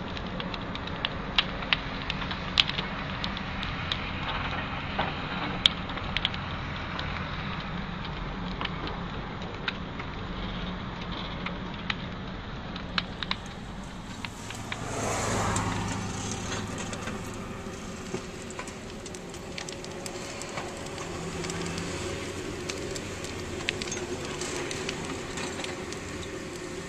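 Car interior noise while driving: a steady rumble of engine and road, with scattered sharp clicks in the first half and a louder swell about halfway through.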